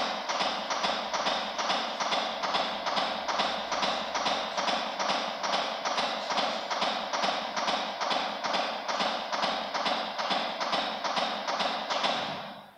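CPR training manikin taking a series of chest compressions: a steady rhythm of plastic clicks and knocks, a little over two a second, which stops near the end as the compressions end.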